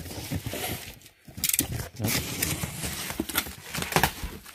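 Cardboard boxes and paper being handled: irregular rustling and scraping with scattered light knocks of box flaps, broken by a short gap about a second in.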